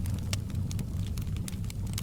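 Wood fire crackling in a fireplace: irregular sharp pops and snaps, a few each second, over a steady low rumble of the flames.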